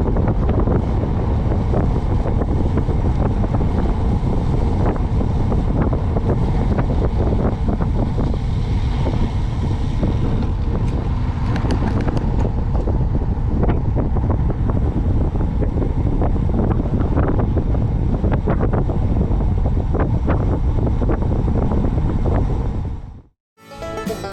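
Wind buffeting the microphone: a loud, steady low rumble with many small knocks through it, cutting off suddenly near the end.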